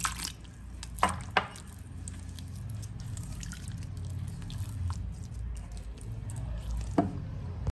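Water poured into a glass bowl of thick wheat-flour batter, then a silicone spatula stirring the wet batter with squishing sounds. There are a few sharp knocks of the spatula against the bowl, about a second in and again near the end.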